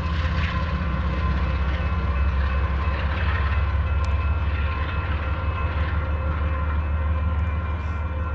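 Diesel locomotives of a loaded Union Pacific coal train running as they approach, a steady low engine rumble with a few faint steady tones above it.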